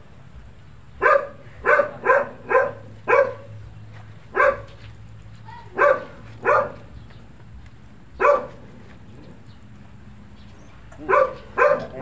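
A dog barking repeatedly, about a dozen short barks: a quick run of five starting about a second in, then single barks a second or two apart, a pause of nearly three seconds, and a final run of three near the end.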